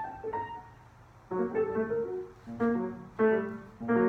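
Piano playing: a single note near the start, then after a short lull a run of four chords, each struck and left to ring and fade.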